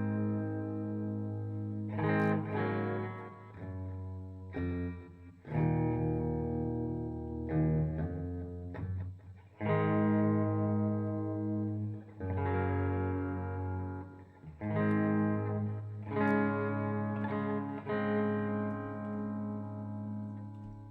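Ibanez S470 electric guitar, tuned down to E flat, played through an amplifier and effects pedals: a series of chords, each struck and left to ring for a second or two, with a little distortion, fading out near the end.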